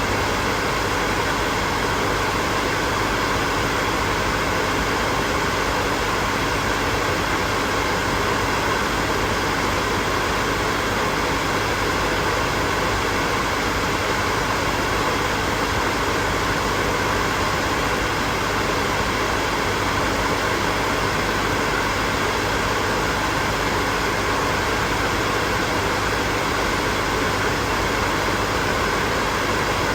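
Hair dryer blowing steadily: a constant whir of fan and rushing air with a faint hum, unchanging throughout.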